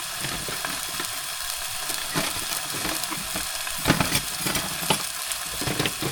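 Burgers sizzling as they fry in a saucepan, with scattered crackles and a couple of sharper clicks about four seconds in.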